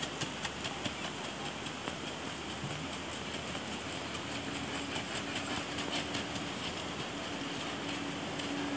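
Horse's hooves beating in a quick, even rhythm on a gravel-dirt track as it is ridden at the trocha, the fast four-beat gait of the Colombian Criollo horse. A faint steady hum joins from about four seconds in.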